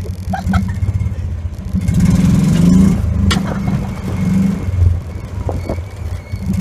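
Side-by-side UTV engine running at close range as it tows, a pulsing low rumble that grows louder about two seconds in.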